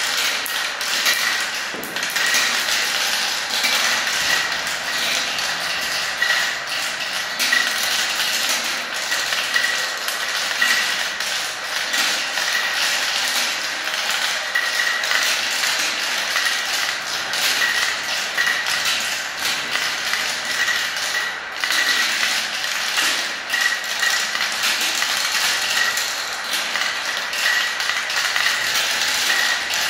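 Many small plastic balls rolling and clattering through a transparent plastic marble run, spinning around swirl funnels and dropping through tubes: a dense, steady rattle of small clicks and taps with light pings.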